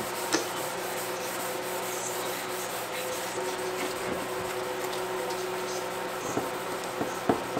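Hand wet sanding of a plastic headlight lens with 600-grit sandpaper and soapy water, taking off the yellowed, sun-damaged surface. A steady rubbing, with a few small knocks near the end.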